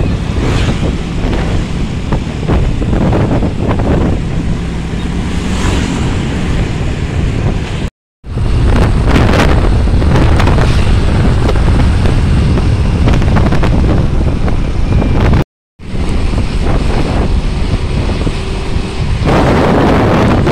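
Wind buffeting the microphone of a moving motorcycle, with the motorcycle's engine and road noise underneath. The sound drops out completely twice, for a moment each time.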